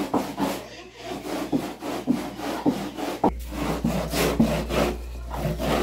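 Fresh green corn cobs rubbed back and forth on a perforated metal hand grater, a rasping scrape about twice a second, as the kernels are grated into a wet pulp.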